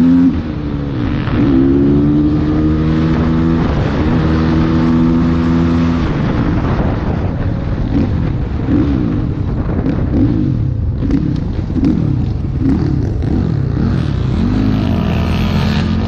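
Motorcycle engine running while riding. Its pitch holds steady for a few seconds, then rises and falls again and again as the throttle opens and closes.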